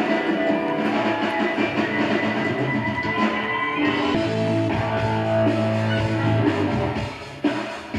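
Live rock band playing: electric guitars, bass and drum kit, with the music briefly thinning out about seven seconds in before picking up again.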